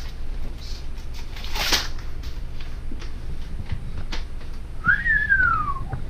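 A person whistles one short note about five seconds in, sliding up and then falling away over about a second. Before it, a brief rustle as a sheet of paper is handled.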